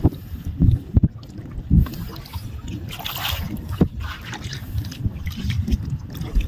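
Footsteps sloshing and splashing through shallow water, with irregular low thumps and wind buffeting the microphone.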